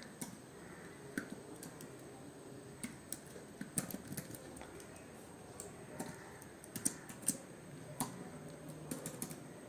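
Computer keyboard typing: faint, irregular keystrokes, some in quick runs and some spaced a second or more apart.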